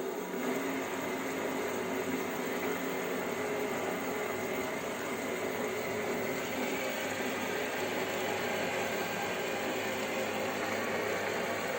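WM210V-400 benchtop metal lathe running steadily in forward at its lowest spindle speed, a steady motor and gear-train hum with a hiss over it.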